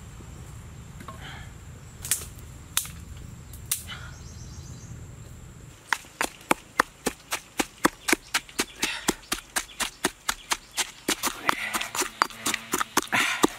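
A wood fire under a wok, a low steady rumble with three sharp cracks. About six seconds in this gives way to a stone pestle pounding chilli paste in a stone mortar, regular knocks about three a second.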